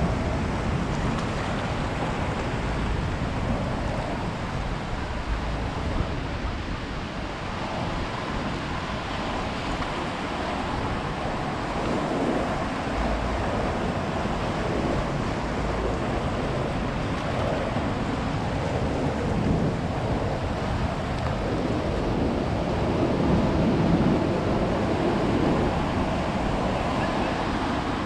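Ocean surf: waves breaking and washing up a beach in a steady rush that swells now and then. Wind buffets the microphone.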